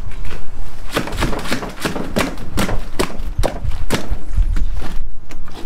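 A large landed fish thrashing in a landing net on a wooden platform: irregular slaps and thumps, about three or four a second.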